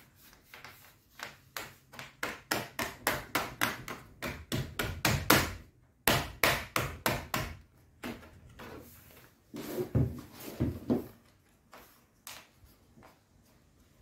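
A quick series of sharp knocks, about three a second, in runs broken by short pauses, loudest near the middle, then thinning to a few scattered knocks and stopping.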